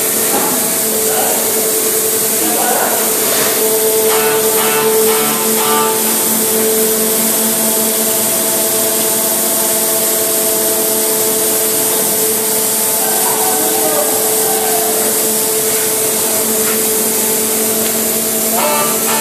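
Tunnel boring machine machinery running: a steady loud hiss over a constant hum. Workers' voices call out briefly a few times over it.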